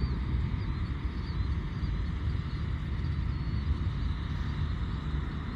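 Wind buffeting the microphone, a steady low rumble that swells and dips, with faint short high chirps repeating in the background.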